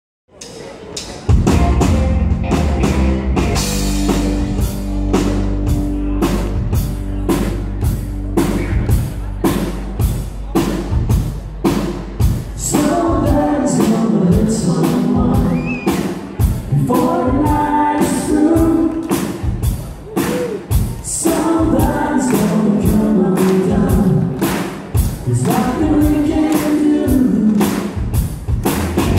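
Live country band playing: a drum kit keeping a steady beat under electric guitar and keyboard, with a man singing lead from about twelve seconds in.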